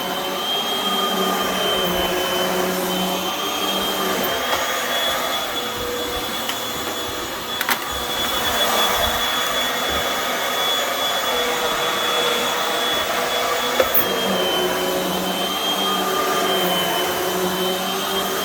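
Hoover WindTunnel upright vacuum cleaner running on carpet, its motor whine steady with small shifts in pitch as it is pushed back and forth. Two sharp clicks, about 8 and 14 seconds in.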